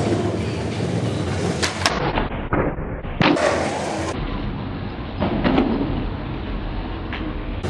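Skateboard wheels rolling on smooth concrete in a steady rumble, broken by several sharp clacks and knocks of the board.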